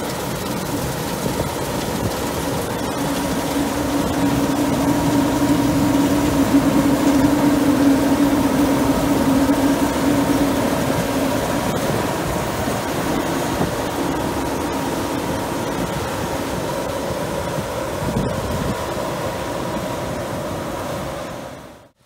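CLAAS Lexion 530 combine harvester running while cutting barley: a steady drone from the engine and threshing machinery, with a humming tone in it. It grows louder as the machine passes close by about six to eight seconds in, then eases off as it moves away, and drops out abruptly at the very end.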